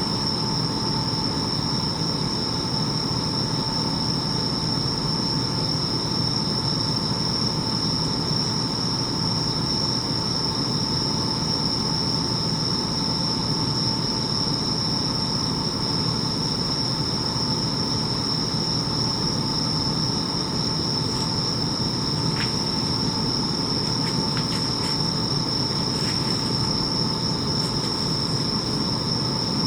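Bell crickets (suzumushi) singing in a steady, unbroken high-pitched chorus, over a constant low rumble of distant background noise.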